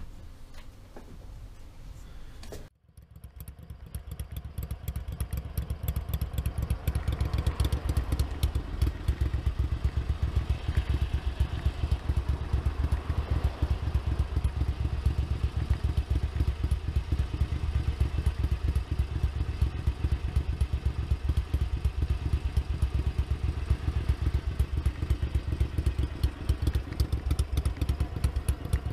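Ducati 900SS bevel-drive 864 cc air-cooled 90-degree V-twin engine running steadily, a fast even beat of exhaust pulses. It comes in about three seconds in and grows louder over the next few seconds, then holds steady.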